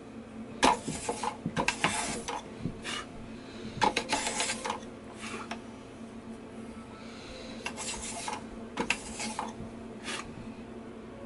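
Thin wooden sticks of a small lattice frame clicking, tapping and rubbing against each other and the wooden workbench as they are handled by hand, in several irregular bursts, over a steady low hum.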